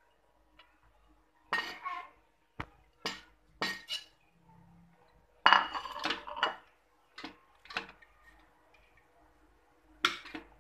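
Metal ladle knocking and scraping against the metal inner pot of a rice cooker while stirring cooked rice: a string of sharp clinks and scrapes, the loudest cluster about halfway through.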